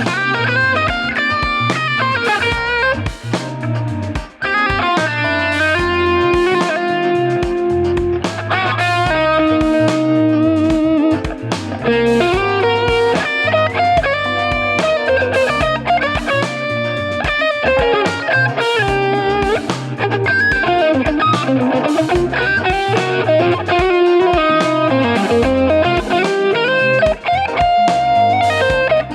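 Electric guitar fitted with Wilkinson high-output ceramic pickups, playing a melodic lead line with bends and slides over a repeating low bass pattern.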